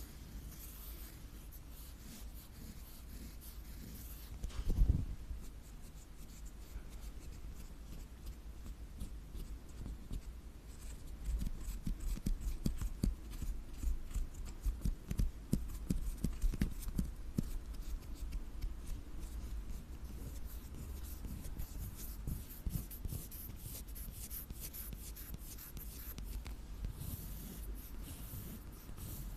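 Close-miked ASMR scratching, fingernails or a tool scraping and tapping on an object in fine, rapid ticks, with one louder bump about five seconds in.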